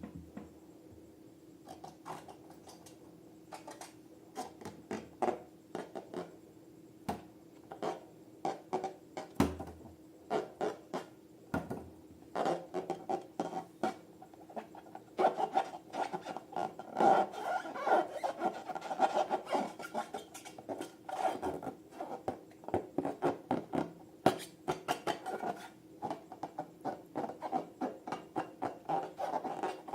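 Hands rubbing and squeezing latex balloons and slime: a long run of short rubbing and scraping strokes, sparse at first and packing close together from about twelve seconds in, over a faint steady hum.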